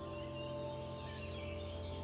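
Quiet background music of held, sustained notes, with faint short chirps above it.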